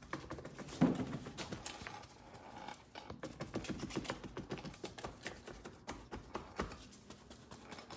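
Irregular soft tapping and brushing of a small paintbrush dabbed and swept over a painted laminate countertop to soften and blend the paint, with a louder knock about a second in.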